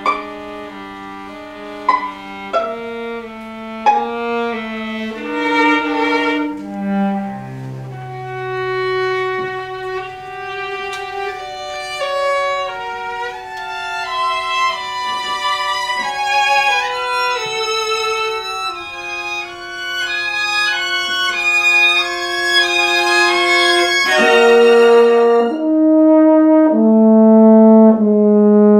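Euphonium and string trio playing twelve-tone, atonal chamber music. Short, accented notes come first, then long held lines that overlap, growing louder toward the end.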